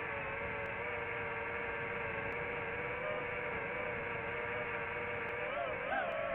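DJI FPV drone's propeller motors whining steadily at a near-constant pitch, several slightly different tones together. The pitch wavers up and down near the end as the throttle changes.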